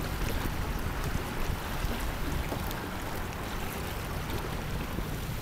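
Wind buffeting the microphone over the rush and slap of choppy water against the hull of a Hobie Island sailing kayak under way.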